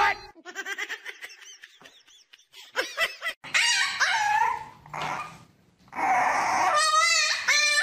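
A puppy whining and yipping in high calls that waver up and down, in several runs with short gaps, louder in the second half.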